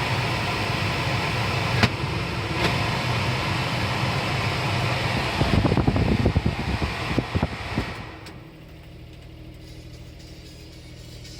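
Daihatsu Hijet Truck's small kei-truck engine running with loud road and cabin noise, with a spell of irregular rattling knocks about two-thirds of the way in. Near the end the noise drops sharply and the engine settles to a quieter steady hum.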